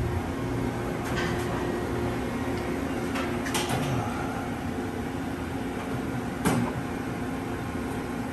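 Steady hum of a powered-up CNC vertical machining center, with a few sharp clicks and knocks. The loudest knock comes about six and a half seconds in.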